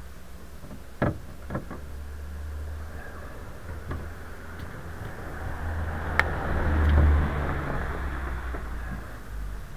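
Hands working a bicycle tyre on its rim, with a few sharp clicks and knocks. A passing car's noise swells and fades over a steady low hum and is the loudest thing, peaking just after the middle.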